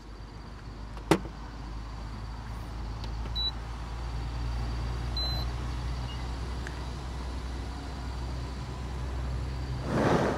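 A steady low mechanical hum, like a vehicle or motor running, with one sharp click about a second in and a short breathy noise near the end.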